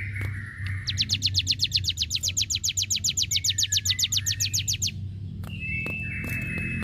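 Cigun (ciblek gunung) song played as a masteran recording: a buzzy 'ngbreeenn' note, then a fast trill of about ten high sweeping notes a second lasting about four seconds, and another buzzy phrase near the end, over a steady low hum.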